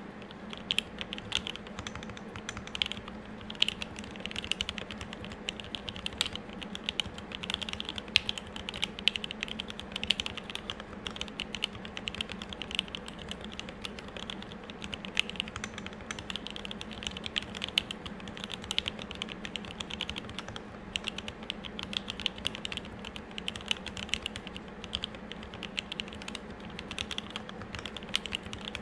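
Continuous fast typing on an M65-A custom mechanical keyboard with lubed Tealios 67g linear switches, a brass plate and GMK keycaps: an unbroken stream of key clacks.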